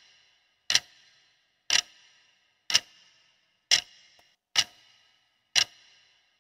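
Clock-tick sound effect marking a quiz countdown timer: six sharp ticks, about one a second, each with a short ringing tail.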